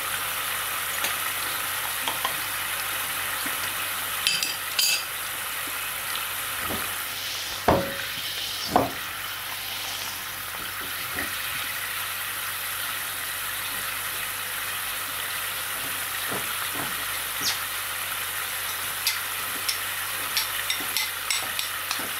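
Soy sauce with ginger, lemongrass and chili boiling hard in a pan: a steady bubbling hiss with scattered pops, a couple of louder ones about eight seconds in. The sauce is being boiled so the ginger and lemongrass flavour goes into it.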